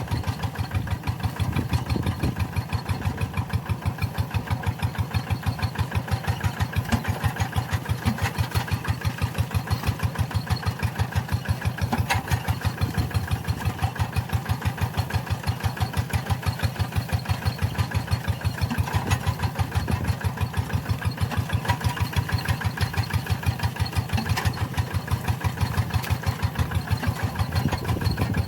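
Tractor engine running steadily with an even, rhythmic beat of firing pulses.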